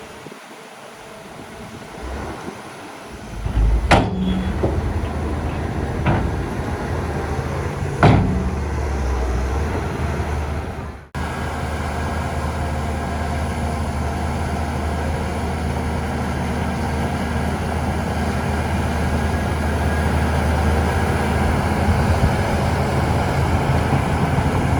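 Heavy earthmoving machinery's diesel engine running steadily after a quieter first few seconds, with two sharp clanks about four and eight seconds in. The sound drops out for an instant near eleven seconds, then the engine runs on steadily.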